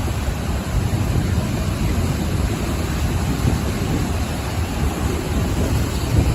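Ocean surf washing onto the shore, a steady rushing noise with a deep rumble underneath.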